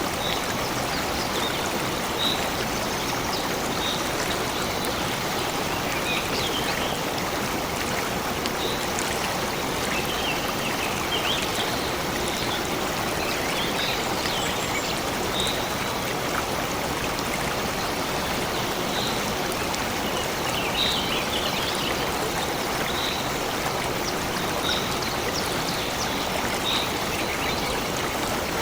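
A stream running steadily, with short high bird calls repeating every second or two over it.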